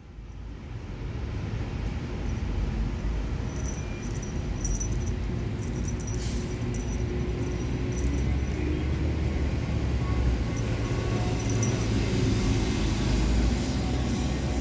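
A cat exercise wheel turning under a running cat: a steady low rumble that builds over the first couple of seconds, with scattered light clicks and rattles.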